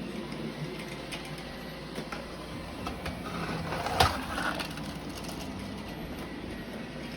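Roomba robot vacuum running: a steady motor hum with scattered small clicks and rattles, and one sharp knock about four seconds in.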